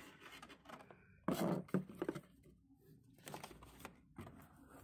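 Hands handling packaging inside a cardboard box: short rustles, scrapes and light knocks of cardboard boxes and sample packets, with the loudest bursts about a second and a half in and again around three and a half seconds.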